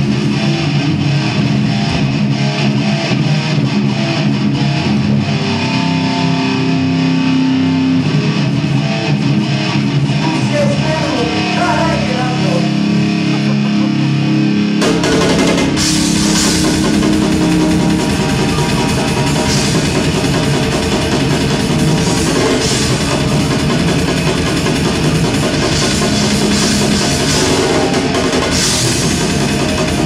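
Live metal band playing at a sound check: held electric guitar chords on their own, then about halfway through the drums and bass come in suddenly and the full band plays on with crashing cymbals.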